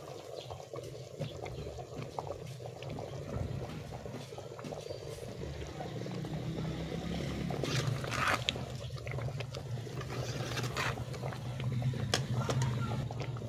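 A pot of greens boiling hard on the fire, with a steady bubbling rumble that grows a little louder in the second half. Scattered light clicks and scrapes of a metal ladle stirring in the pot.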